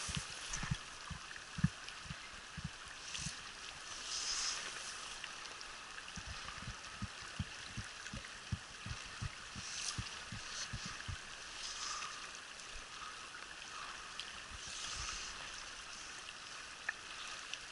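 Mountain trout stream running steadily, a constant rushing hiss of moving water, with scattered dull low bumps through it.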